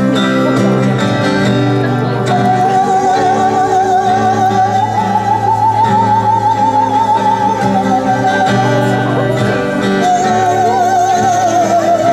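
Experimental live music: a high voice holds long notes with a fast vibrato over a steady low drone. The first note enters about two seconds in, climbs slightly and sinks back, then breaks off, and another begins near the end.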